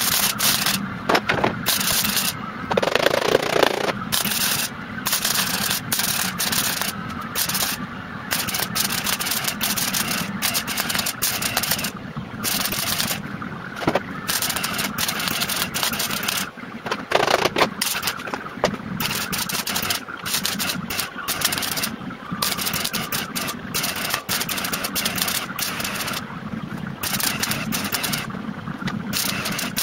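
MIG welder arc crackling as a new steel chassis leg is welded into a car floor pan, laid down in short runs that stop and start every second or two.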